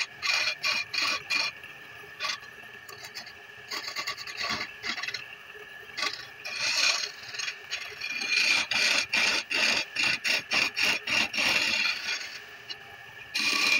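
A hand tool rasping against a wooden spindle spinning on a motor-driven wood lathe, in quick repeated strokes several a second, over the lathe's steady hum. The strokes ease off for a few seconds early on and come thickest in the second half, with a last short burst near the end.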